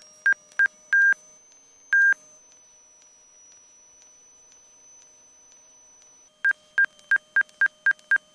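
Angle-of-attack stall-warning beeps from the aircraft's avionics, short beeps on one pitch. In the first two seconds they slow from about three a second to two longer beeps and stop as the angle of attack comes down. About six and a half seconds in they start again at about three a second, the warning of a stall drawing near.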